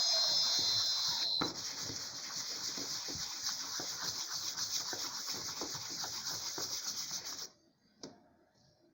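A CNC router spindle spinning down, its whine falling in pitch and stopping about a second and a half in. A steady hiss with irregular crackling and rubbing follows, then cuts off abruptly near the end.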